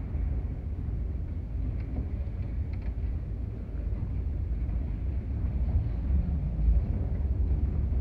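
Steady deep rumble with a hiss of background noise in a large airport hall, heard while riding a moving escalator, with a few faint ticks.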